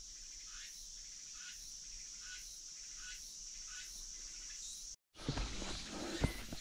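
Summer insects droning steadily in a high whine, with a short chirp repeating about two or three times a second. About five seconds in the sound cuts out briefly and is followed by louder irregular knocks and rustling.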